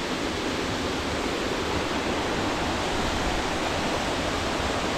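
Steady rushing of the river flowing through the rock gorge, an even wash of water noise.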